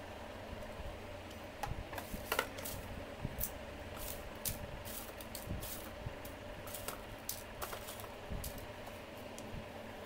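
Irregular light clicks and taps of PVC pipe pieces and a plastic tub being handled and fitted together, over a steady low hum.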